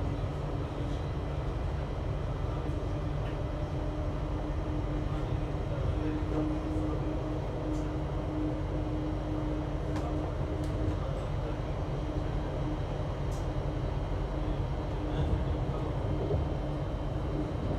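Thameslink electric train running steadily: a continuous low rumble with a steady hum that is strongest through the middle, and a few faint clicks.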